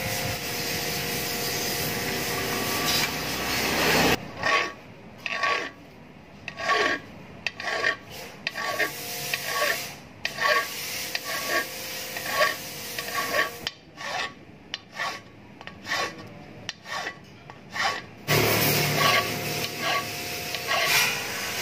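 Flat hand file rasping back and forth across a rivet head clamped in a steel bench vise. The strokes come in a run starting about four seconds in, roughly one a second, each with a faint metallic ring. The filing is shaping the rivet into a replacement carburettor needle.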